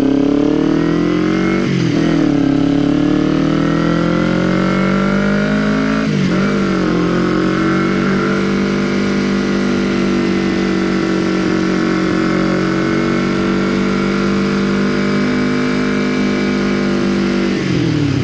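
Kawasaki Ninja 250R parallel-twin engine pulling away and accelerating, with the revs climbing and then dropping sharply at two upshifts, about two seconds and about six seconds in. It then holds a steady cruise, and near the end the revs fall away as the throttle is rolled off.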